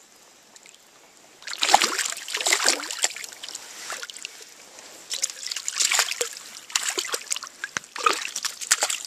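Water splashing in several bursts as a hooked brook trout thrashes at the surface on the line, the first burst about a second and a half in.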